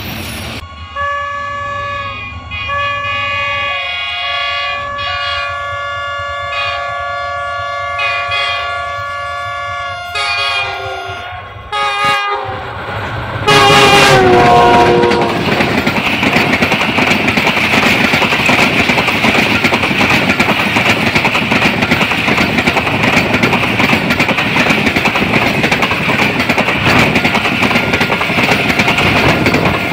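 Pakistan Railways diesel locomotive's multi-tone horn sounded in several blasts, the longest about six seconds. About halfway through, a train passes close by with a loud, steady rumble and clatter of wheels on rail joints. The horn's pitch briefly drops as it goes by.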